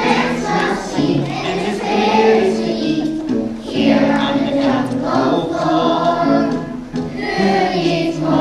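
A children's choir singing a song over musical accompaniment.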